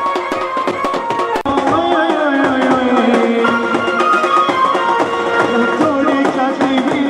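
Music with a fast, dense drum beat under a melody. A sharp break comes about a second and a half in, where the music changes and a wavering melody line comes to the front.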